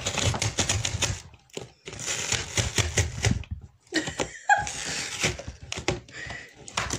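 Cardboard Glossybox and tissue paper being handled and unpacked: a rapid run of scratchy rustling and clicking, broken by two short pauses.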